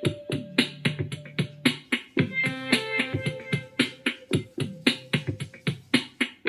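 Background music: a quick, steady beat of sharp percussive hits under melodic instrumental notes.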